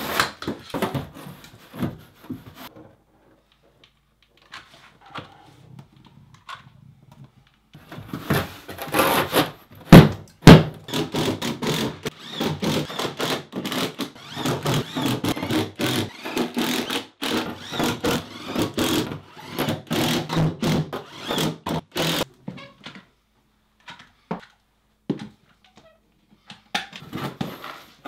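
Knocks and thunks of a Wedi foam-core building panel being handled and set against the studs, with two loud sharp thunks about ten seconds in. Then a cordless impact driver runs in repeated bursts, driving screws and washers through the board, until it stops a few seconds before the end.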